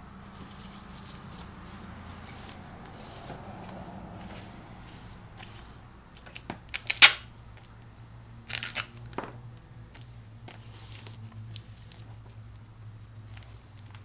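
Plastic vacuum-bag film crinkling and rustling as duct tape is pressed down to seal its open edge, with a few sharp crackles, the loudest about seven seconds in.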